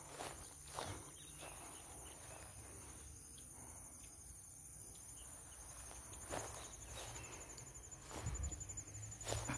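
Insects chirring steadily at a high pitch, with a few soft knocks or steps about a second in and again in the last few seconds.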